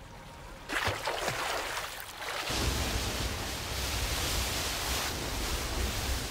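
Moving water: a sudden splashing rush just under a second in, then from a couple of seconds in a steady rush of water with a deep rumble underneath.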